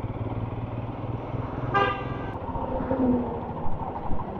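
Motorcycle engine and road noise while riding, with a vehicle horn sounding once for about half a second near the middle.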